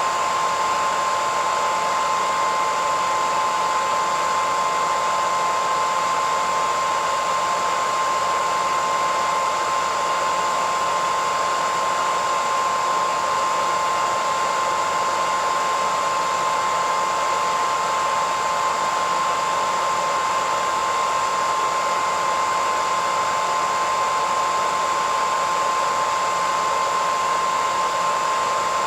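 Hairdryer running steadily: a constant rush of blown air with a steady whine near 1 kHz from its motor and fan.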